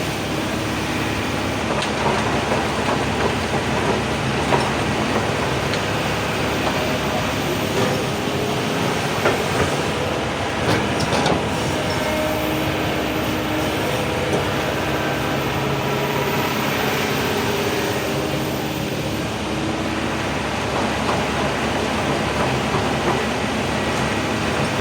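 Excavator's diesel engine running steadily under load, its pitch shifting now and then as the hydraulics work, with scattered clanks and knocks mostly around the middle.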